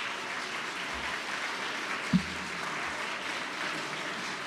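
Audience applauding in a hall, with a single low thump a little over two seconds in.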